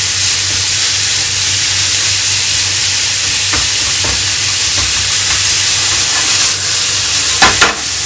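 Minced chicken breast sizzling loudly in a frying pan on high heat, with a steady low hum underneath. A brief clatter near the end comes as the meat is worked in the pan.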